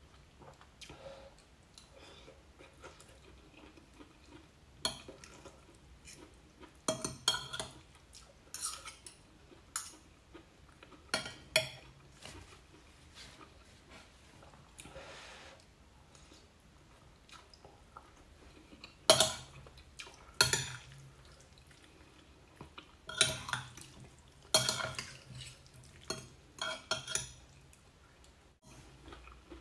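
Metal fork and spoon clinking and scraping against a ceramic plate during a meal of noodles in gravy. The sharp clinks come in scattered clusters, with quieter stretches between them.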